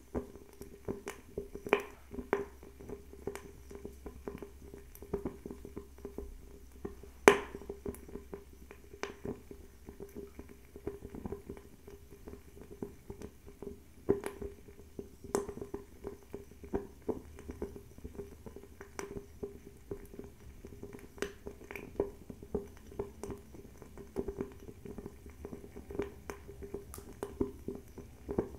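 Bio-ethanol table fireplace burning with frequent small, irregular crackles and ticks over a low steady hum, and one louder pop about seven seconds in.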